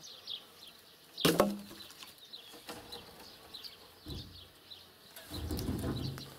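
Cut birch poles thrown from a truck bed, landing on a pile with sharp wooden knocks: a loud one about a second in, a smaller one about four seconds in, and another at the end.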